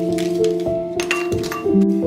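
Instrumental background music: a melody of held notes that change every half second or so, with a few light clicks among them.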